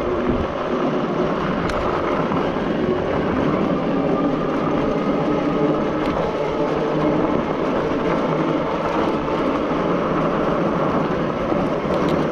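An e-bike being ridden along a dirt path: steady, even rolling noise of the tyres and the ride.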